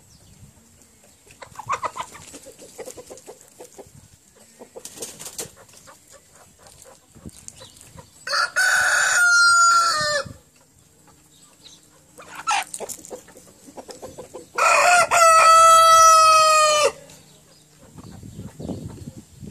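Ten-month-old Brahma rooster crowing twice, each crow about two seconds long with the second a little longer, and a few short, quieter clucks in between.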